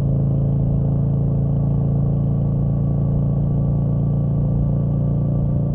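An engine running steadily at a constant speed, with a strong low hum and no revving.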